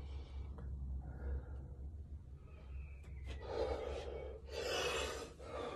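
A man breathing hard into the phone's microphone: two long, loud breaths about three and four and a half seconds in, over a low steady hum.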